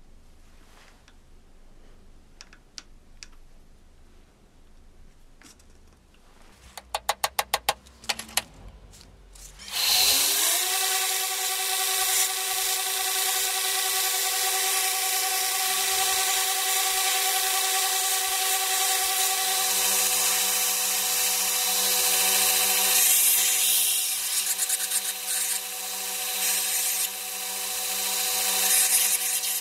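A few light clicks, then a quick run of sharp taps. About ten seconds in, a belt grinder's motor winds up and runs steadily, with the hiss of a wooden knife handle being ground against the abrasive belt.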